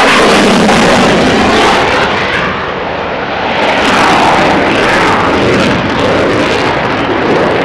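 F-16 fighter jet engine roaring as the jet passes in its display. A loud, continuous roar whose tone sweeps slowly up and down, dipping slightly about three seconds in before swelling again.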